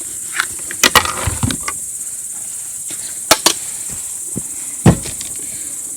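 Crickets chirring in a steady, high-pitched continuous drone, with a few sharp knocks and clicks: two about a second in, two around three and a half seconds, and the loudest near five seconds.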